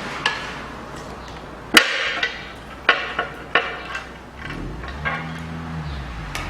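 Sharp metallic knocks and clicks as a pry bar works an engine's front timing cover loose: one loud strike about two seconds in, then about four lighter ones over the next two seconds. A low steady hum sets in near the end.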